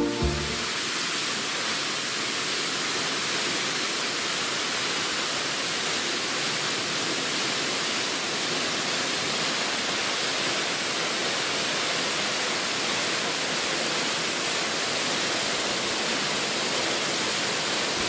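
A waterfall pouring in heavy flow after days of rain: a steady, hissing rush of falling water and spray, with little low rumble.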